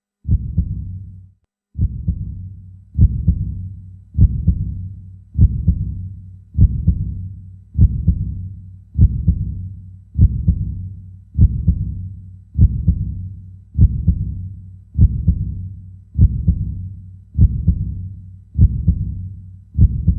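Dramatic heartbeat sound effect: deep, bass-heavy double thumps, lub-dub, about every 1.2 s (roughly 50 beats a minute), each trailing off in a long fading rumble.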